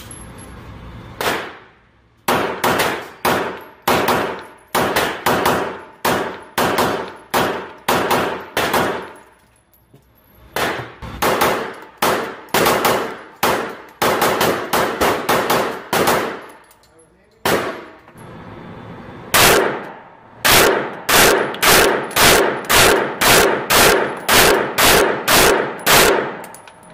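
Semi-automatic pistol fired in rapid strings of shots, about two a second, each shot echoing off the hard walls of an indoor range. The strings pause briefly twice, and the last string, near the end, is the loudest.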